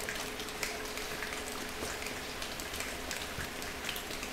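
Rain sound effect made for foley: a steady hiss with many small, scattered drop-like ticks, over a faint steady hum.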